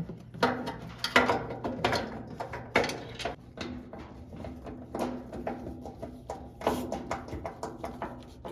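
Irregular clicks and knocks of the washing machine's lid switch and its plastic housing being handled and fitted back into place, over a low steady hum.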